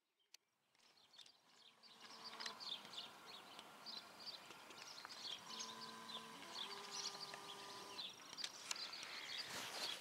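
Outdoor ambience of small birds chirping and singing, fading in over the first two seconds. A faint steady hum comes in twice underneath, and its pitch steps down once.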